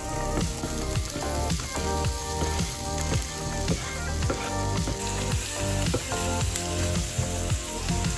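Diced onion sizzling and crackling in hot sunflower oil in a frying pan as it goes in, with background music underneath.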